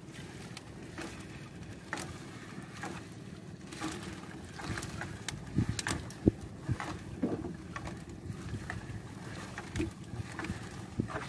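Irregular knocks and clatter in a small fishing boat as a sinking gill net is hauled in by hand, with one sharp, loud knock about six seconds in.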